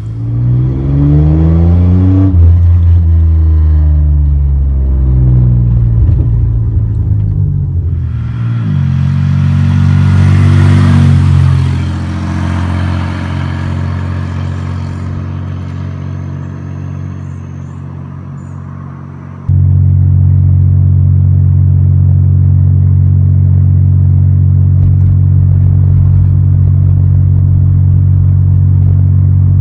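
1997 Chevy Camaro's 3.8-litre V6 exhaust through a Cherry Bomb performance muffler, revving and accelerating with the engine pitch rising and falling. From about two-thirds of the way in it holds a loud, steady drone.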